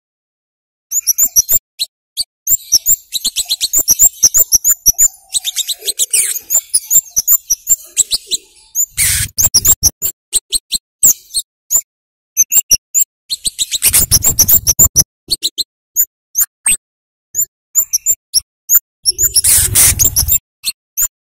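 Scarlet-headed flowerpecker (kemade) giving rapid runs of sharp, very high 'cit' chip calls, the calls coming in bursts with short silent gaps between. Three louder rushing noises break in: about nine seconds in, around fourteen seconds, and near the end.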